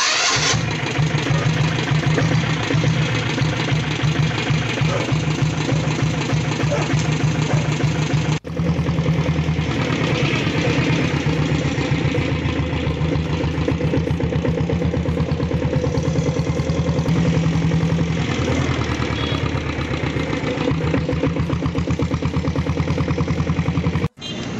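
Royal Enfield Bullet's diesel engine running as the motorcycle is ridden, with a fast, even clatter of firing strokes. The sound cuts in suddenly at the start and breaks off for an instant about eight seconds in and again near the end.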